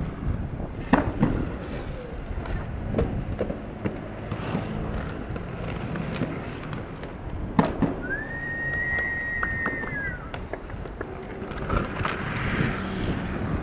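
Skateboard wheels rolling on hard ground, with a few sharp clacks of the board hitting the ground. A high, steady whistling tone lasts about two seconds past the middle.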